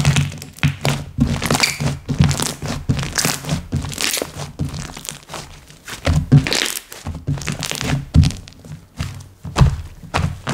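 Slime being squished and pressed by hand, making a run of irregular clicks, pops and soft thuds.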